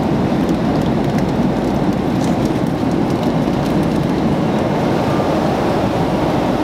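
Steady cabin noise inside a Boeing 767-300 airliner in flight: the engines and the rush of air past the fuselage make an even, unbroken drone.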